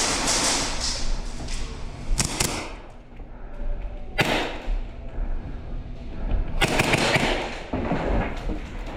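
Airsoft play: scattered sharp cracks and thumps, with a quick cluster of them about two-thirds of the way in.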